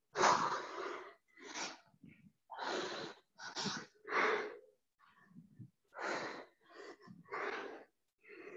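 A woman breathing hard from the exertion of a bodyweight HIIT exercise: about ten short, forceful exhalations, roughly one a second.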